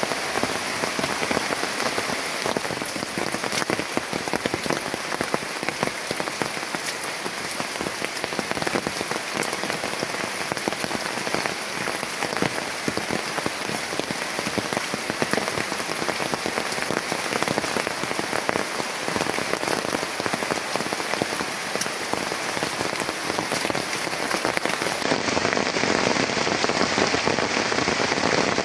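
Heavy rain falling steadily, a dense hiss of countless drops striking a surface.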